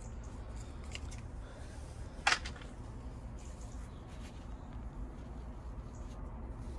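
Plastic packet of a windscreen repair kit crackling once, sharply, about two seconds in as a wipe is pulled out, then faint rubbing of the wipe on the windscreen glass, over a steady low outdoor rumble.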